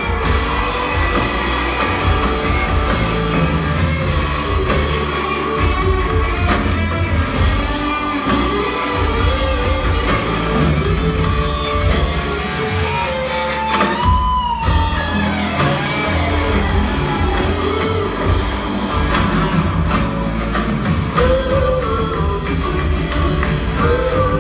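Live band music: electric guitar, keyboards, drums and upright bass playing a rock-pop groove, with a woman singing; one held, wavering vocal note about halfway through.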